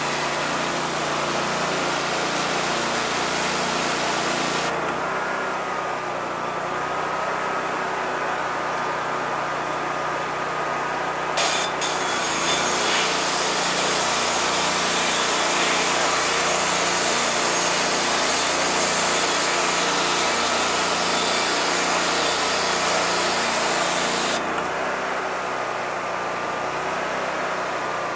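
Unimanix ARH-4070GDCS hot-water pressure washer blasting a painted, rusty steel plate: a loud hiss of the high-pressure jet over the steady hum of the machine running. The hiss thins about five seconds in and comes back stronger after a couple of sharp clicks around eleven seconds. It cuts off near the end while the machine keeps running.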